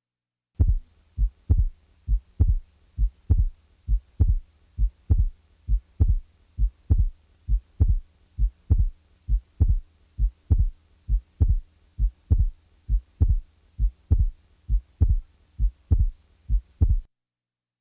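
Heart sounds as heard on auscultation: a regular lub-dub, about 70 beats a minute, over a faint steady hum, cutting off near the end.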